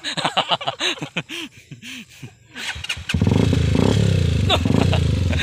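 Motorcycle engine starting about three seconds in and then running steadily with a fast, even firing pulse. Before it starts there are a few seconds of a person's voice.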